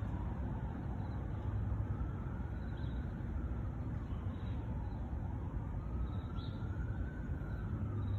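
Steady low rumble of distant road traffic, with a few faint high chirps scattered through it.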